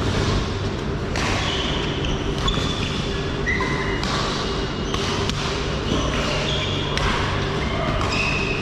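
Badminton play: sharp racket hits on the shuttlecock at irregular intervals, roughly a second apart, with short high squeaks of shoes on the court floor over a steady low hum.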